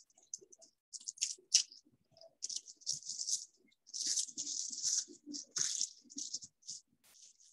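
Thin plastic backing sheet of a puff pastry sheet crinkling and rustling in short, irregular bouts as the pastry is rolled up and the sheet is peeled away.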